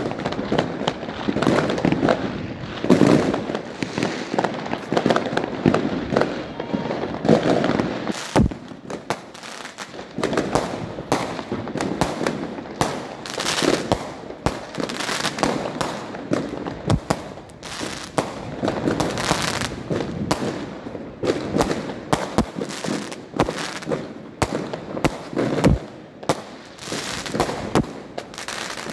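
Aerial fireworks going off: a dense, unbroken run of sharp bangs and crackles, many bursts close together.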